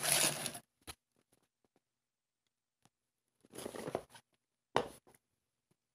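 Brief handling noises from a pair of Vans Half Cab Pro skate shoes being moved and picked up by hand: a short rustle at the start and a light click, then about half a second of rustling a little after the middle followed by a sharp tap. Dead quiet between the sounds.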